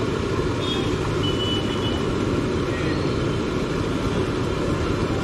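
Steady street traffic noise: a continuous low rumble of vehicles, with a faint brief high tone a little over a second in.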